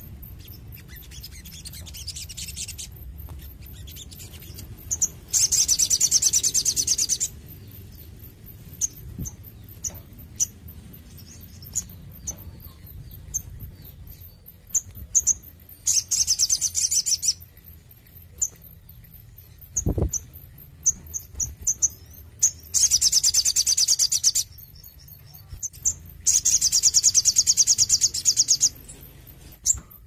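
Male olive-backed sunbird singing: four fast, high trills of one and a half to two seconds each, with short single chirps scattered between them. A single low thump about two-thirds of the way through.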